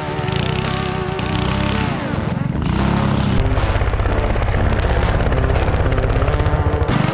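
Predator 212 single-cylinder four-stroke engine of a homemade go-kart running under throttle, its pitch holding, then falling as it slows about two seconds in. From about halfway it gives a loud, rapid low pulsing, and it revs up again near the end.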